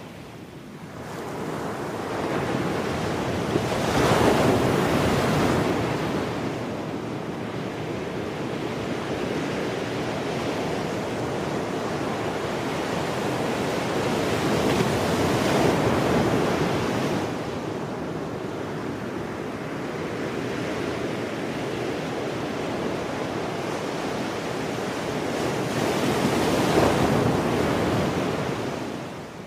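Ocean surf: a steady rushing wash of waves, swelling louder three times as larger waves break, roughly every eleven to twelve seconds.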